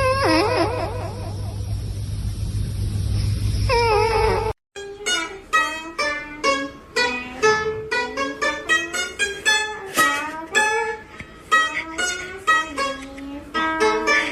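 Two short, wavering animal cries over a steady low hum. After an abrupt cut, background music of quickly plucked strings plays for the rest of the time.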